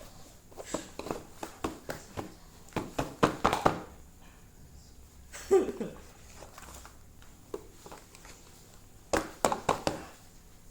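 Scuffling, knocks and thumps of a person and a dog play-fighting, in two flurries, with one short falling vocal sound about five and a half seconds in.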